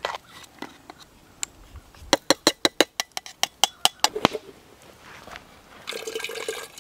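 A quick run of about a dozen sharp metallic clinks, about five a second, as the stem and grounds basket of a percolator coffee pot are handled. Near the end, water from a hanging water bag's hose starts running into the metal pot.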